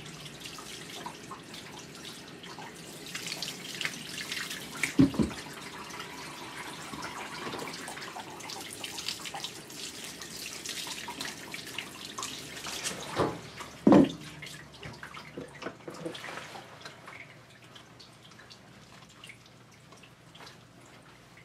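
Water from a handheld bathing sprayer running over a wet Maltese's coat and splashing into a grooming tub, with two sharp knocks about 5 and 14 seconds in. The spray stops near the end, leaving dripping water.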